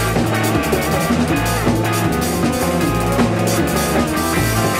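Jam-band rock played live with no vocals: drum kit, five-string electric bass, electric guitar and congas playing together at a steady loudness.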